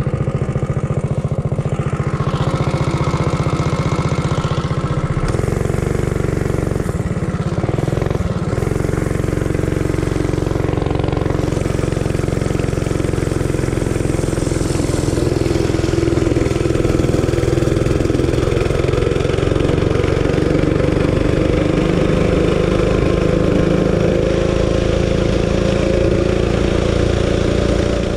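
Realtree RT200 mini bike's 196cc single-cylinder engine, with a custom exhaust and its governor spring zip-tied, running under throttle as the bike is ridden, its revs holding fairly steady for most of the time.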